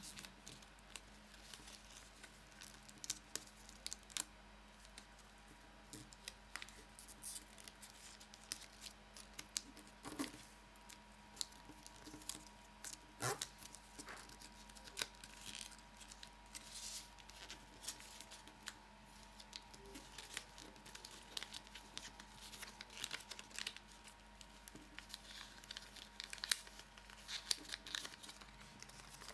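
Sheet of origami paper being folded and creased by hand: faint, irregular crinkling and rustling with scattered sharper crackles as the folds are pressed.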